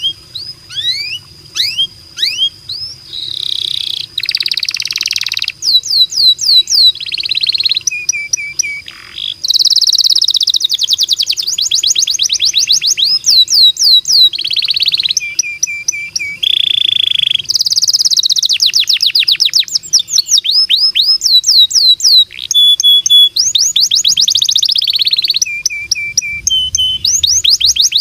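Domestic canary singing a long song of fast rolling trills made of rapid repeated falling notes. These alternate with buzzy phrases and short held tones, with brief pauses between the phrases.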